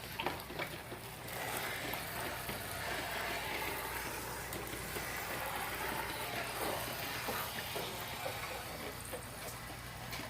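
Water spraying or running in a steady stream, most likely a rinse of the air conditioner's parts. It is preceded by a few light knocks and clicks at the start.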